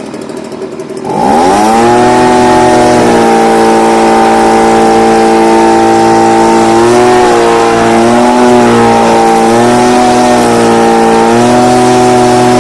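Stihl BG55 handheld leaf blower's two-stroke engine idling, then throttled up about a second in to a loud, steady full-speed run, dipping briefly in pitch a few times. It runs at full throttle on a new carburetor with the high-speed screw adjusted to stop it bogging down.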